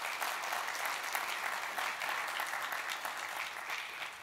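Audience applauding: many hands clapping at once, thinning out near the end.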